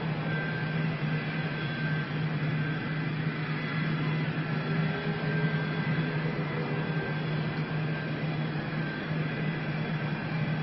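Steady engine drone with a strong low hum and a faint high-pitched whine, unchanging throughout.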